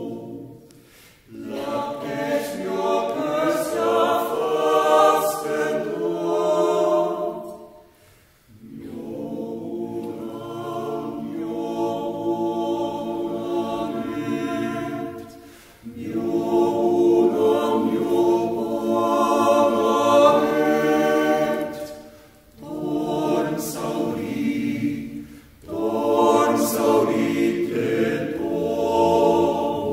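Small yodel-club choir singing unaccompanied in long sustained phrases, with short breaks for breath between them.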